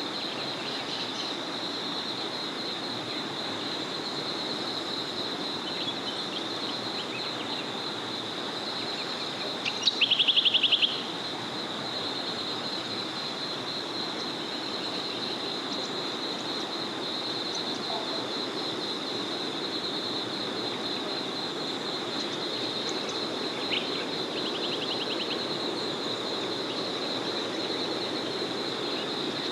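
A small forest river flowing steadily, under a continuous high, finely pulsing chorus. About ten seconds in a loud, rapid rattling bird call lasts about a second, and a fainter one like it comes near the end.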